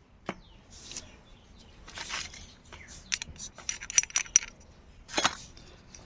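Small metal motorcycle engine parts being handled: a string of light clicks and clinks, one with a brief high metallic ring about four seconds in, and a sharper click about a second later.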